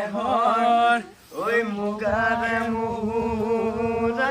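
Young male voices singing unaccompanied. A short sung phrase breaks off about a second in, then one long note is held steady.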